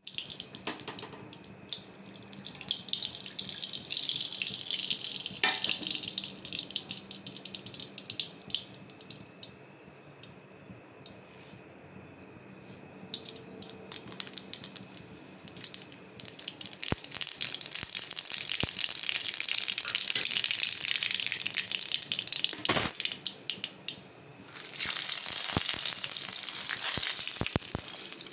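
Hot oil sizzling in an aluminium pan, with mustard seeds crackling and popping in it: the tempering stage, oil hot enough for the seeds to splutter. The crackling eases for a few seconds midway, then turns busier again, with one sharp pop near the end.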